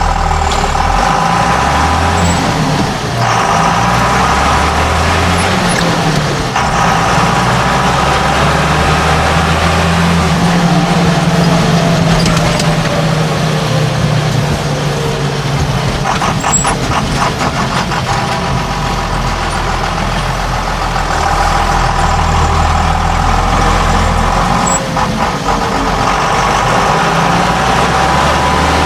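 Tractor engine running steadily while driving, heard from the cab with the windscreen open, its pitch rising and falling a few times as the engine speed changes. A stretch of rattling clatter comes a little past the middle.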